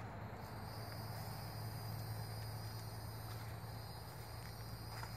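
Steady high-pitched chorus of crickets, several insects trilling at once, coming in about half a second in, over a low steady hum.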